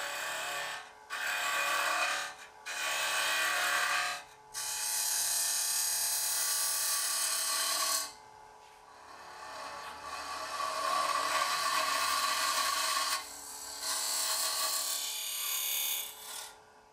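Wood lathe spinning a wooden box-lid blank while a box cutter hollows out its end grain: a rasping cutting noise in several cuts of one to a few seconds each with short pauses, over the lathe's steady hum.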